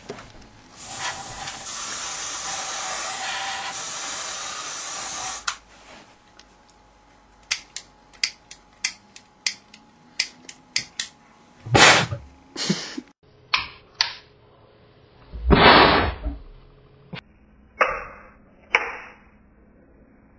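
Aerosol deodorant sprayed into a glass whisky bottle in one long hiss lasting about four seconds, then a lighter clicked over and over, about a dozen quick clicks, followed by a few louder short bursts of noise.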